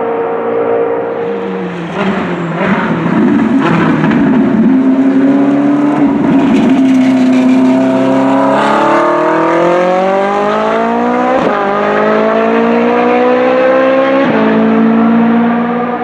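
Ferrari 458 Challenge race car's 4.5-litre V8 at full racing volume. It slows with the engine note dropping and a few sharp pops, then accelerates hard, the pitch climbing through two quick upshifts about three seconds apart.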